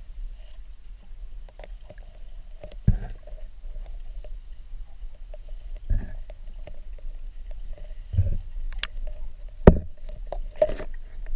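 Muffled sound of a camera held underwater in a river: a steady low rumble of moving water, broken by a few louder dull knocks.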